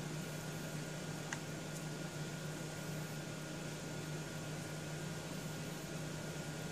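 Steady electrical hum and hiss of room tone, with a faint tick or two about a second and a half in as card stock and tools are handled on the craft mat.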